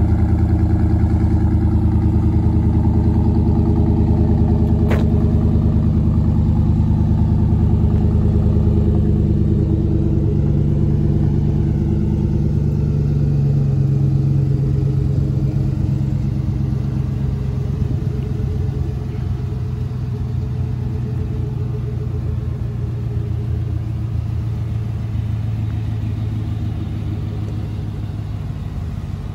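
Chevrolet 5.3-litre V8 idling through a Carven Competitor exhaust just after a cold start, a steady deep rumble that gradually gets quieter as the idle settles.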